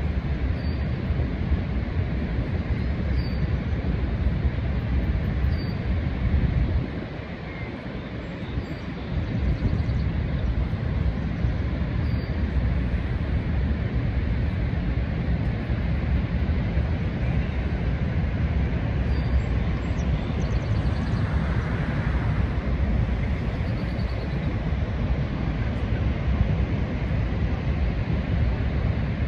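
Niagara Falls: the steady, deep roar of the waterfall, dipping briefly about seven seconds in.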